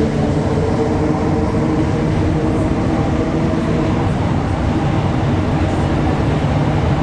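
Montréal Métro Azur rubber-tyred train running between stations, heard from inside the car: a loud, steady rumble with a low hum.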